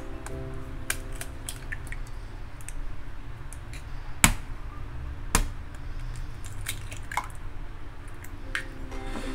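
Handling sounds of kitchenware: scattered light clicks, and two sharp knocks about four seconds in and a second later, over a steady low hum.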